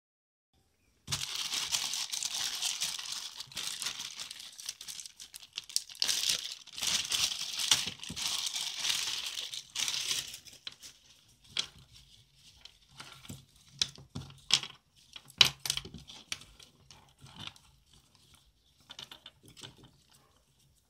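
Clear plastic zip-lock bag crinkling steadily for about ten seconds as a nylon shoulder strap is pulled out of it. After that come scattered clicks and light knocks as the strap's buckles and metal clips are handled on a wooden table.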